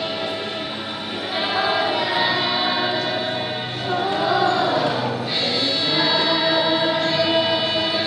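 A group of scouts singing together as a choir, holding long sung notes.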